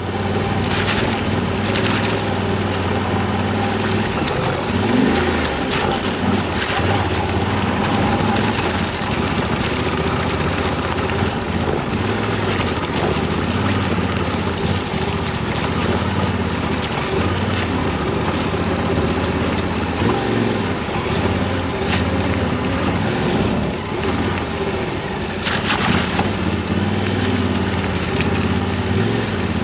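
Yamaha Ténéré 700's parallel-twin engine running steadily as the motorcycle rides a loose gravel and dirt track, heard from close to the front wheel, with wind noise on the microphone and tyre noise from the track.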